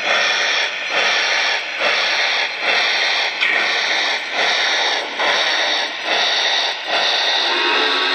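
Sound system of a Lionel Vision Line Western Pacific GS-6 O gauge steam locomotive playing a slow, hissing steam chuff, about one a second, as the model rolls. A low steady tone of several notes joins near the end.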